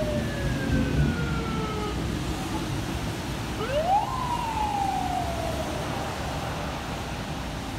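A whistle-like tone gliding slowly down in pitch, then, a little over three seconds in, sweeping quickly up and sliding slowly down again, over a steady low background rumble.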